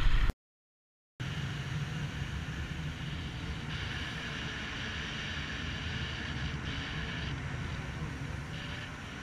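Sound cuts out completely for about a second, then a jet ski's engine runs steadily at low speed with water noise around the hull.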